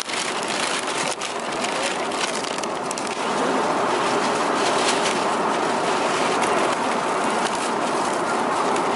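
Plastic bag and foil meal-tray lid crinkling and rustling as an in-flight meal is unpacked, with crackling strongest in the first three seconds, over a steady rushing airliner cabin noise.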